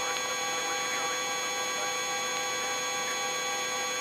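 Steady hum with several fixed whining tones from a Eurocopter EC135 helicopter's turbines and drive train, heard through the cockpit intercom audio feed.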